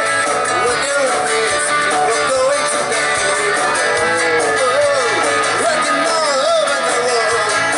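A live rock band playing loudly through a PA, with electric and acoustic guitars and a male lead voice singing the wavering melody.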